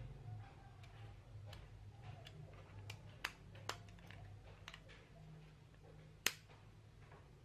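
Small clicks and taps of a screwdriver and the plastic shell of a computer mouse being handled during disassembly, with one sharp plastic click a little after six seconds in, over a faint low hum.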